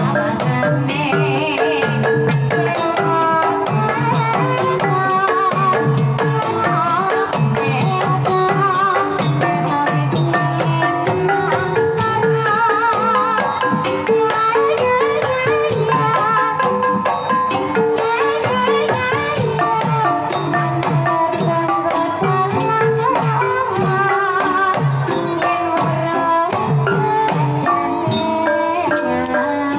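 Javanese gamelan playing a Banyumasan tayub piece: a hand-played kendang barrel drum sets a busy rhythm under the ringing notes of bronze bossed gong-chimes struck with a stick. A sinden's voice wavers over the ensemble at times.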